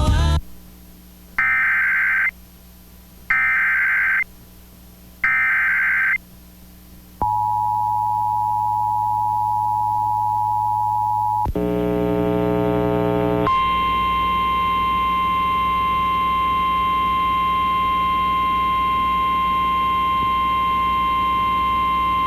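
Emergency Alert System tones. First come three one-second screeching bursts of the SAME data header with short gaps between them. Then comes the two-tone EAS attention signal for about four seconds, a brief jumble of tones, and finally the steady single-pitch 1050 Hz NOAA Weather Radio alert tone, which signals a warning about to be read.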